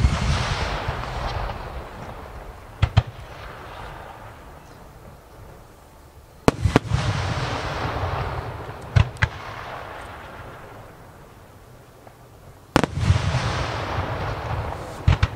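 Large aerial firework shells bursting: a sharp boom about every six seconds, each followed by a long rumble and hiss that slowly fades, with a quick pair of smaller cracks between the booms.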